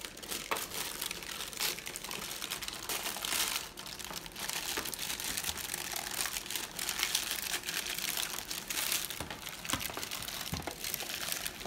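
Sheets of paper lining a roasting pan crinkling and rustling continuously as hands work them loose from under a soft slab of taffy, with scattered sharp crackles.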